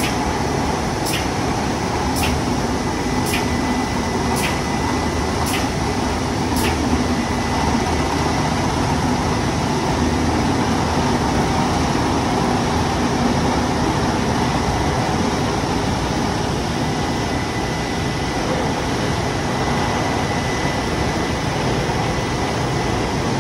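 Steady running noise of an Emme Elle LBAS high-gloss polishing machine for flat panels, with a faint high whine. A light tick repeats about once a second and stops about seven seconds in.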